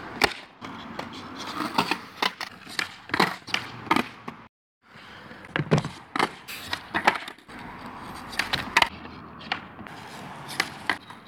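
Skateboard on concrete during fakie kickflip attempts: the tail popping, the deck clattering and slapping down on the ground, with the wheels rolling between the hits. Many sharp knocks, and the sound cuts out briefly about four and a half seconds in.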